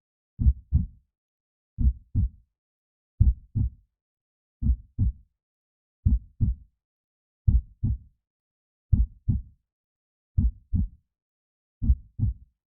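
Slow, steady heartbeat: a low double thump, lub-dub, repeating about every second and a half with silence between beats.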